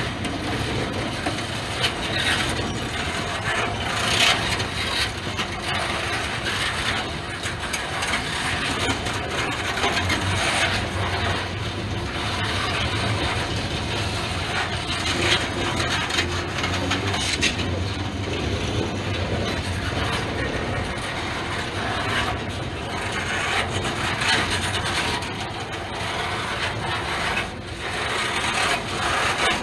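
Freight train of boxcars rolling past at close range: a steady rumble and clatter of steel wheels on the rails, with brief louder clanks every few seconds.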